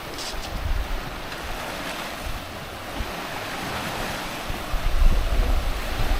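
Sea waves washing on a beach, with wind buffeting the microphone in uneven gusts, strongest about five seconds in.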